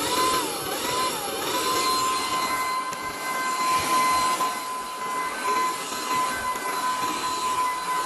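Cordless stick vacuum running, its motor giving a steady high whine over the rush of suction air. The whine steps up in pitch at the start, wavers for about a second, then holds steady.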